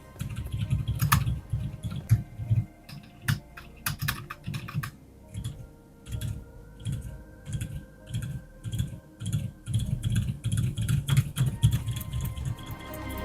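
Typing on Outemu Cream Yellow silent tactile switches, unlubricated from the factory, in a gasket-mounted Monsgeek M1 keyboard with thick PBT keycaps. The keystrokes are muted and low-pitched, coming in uneven runs.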